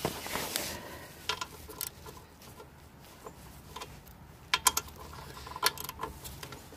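Hand socket ratchet clicking in a few short bursts as a nut is turned on the snowblower engine, with sharp metal clicks loudest about two-thirds of the way in.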